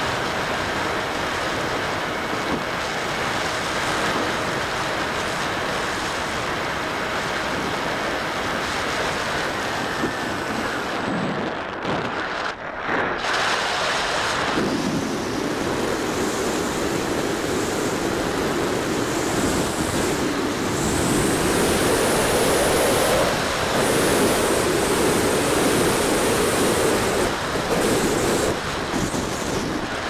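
Air rushing and buffeting over the onboard camera's microphone of a Bixler 3 RC glider in flight on a windy day. The rush drops briefly about halfway through, then comes back heavier and slightly louder as the glider dives and banks.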